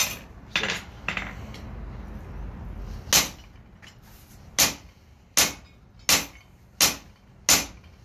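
Blacksmith's hammer striking a handled tool held against a hot steel horseshoe on the anvil. A few scattered blows come first, then a steady run of sharp metallic strikes about one every three-quarters of a second.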